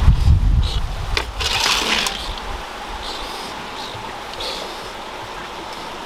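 Leafy greens rustling as a hand pushes them into a bamboo cage, over wind buffeting the microphone. After about two seconds this settles into a steady, softer rushing hiss.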